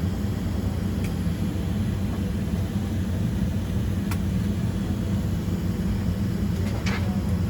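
Steady low rumble inside the cabin of a Boeing 767-300ER on the ground before takeoff. A few faint clicks are heard about a second in and about four seconds in.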